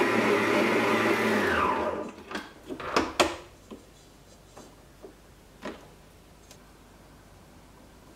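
Stand mixer motor running steadily as the dough hook kneads bread dough, then switched off and winding down with a falling pitch about a second and a half in. A few sharp clicks and knocks follow, the loudest about three seconds in, as the mixer head is raised and the dough is pulled off the hook. Then come a few soft taps of handling.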